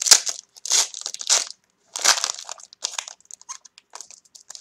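Foil trading-card wrapper crinkling and crackling as it is peeled off a card by hand. The loudest crackles come in a few bursts over the first two seconds or so, then thin out into smaller crackles.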